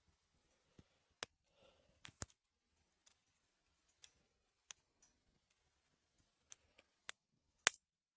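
Wood campfire crackling: scattered sharp pops at uneven intervals, the loudest pop near the end.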